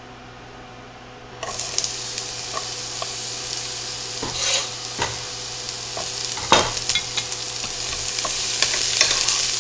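Diced onion hitting hot oil in a sauté pan and sizzling, starting suddenly about a second and a half in and growing slowly louder, with a wooden spatula scraping and knocking against the pan as the onion is stirred.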